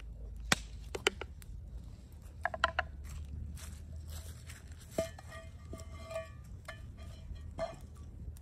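Metal cookware knocking and clinking at a wood cooking fire: a few sharp clicks in the first seconds, a louder knock about five seconds in as a small metal frying pan is set on the fire beside the soup pot, followed by a faint ringing tone.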